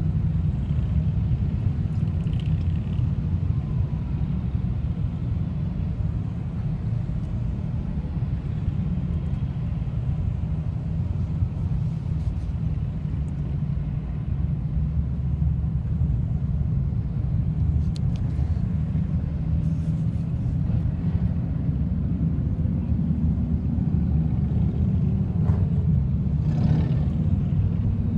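A column of motorcycles riding past in a steady, low engine rumble. Near the end one bike's engine note rises and falls as it passes close.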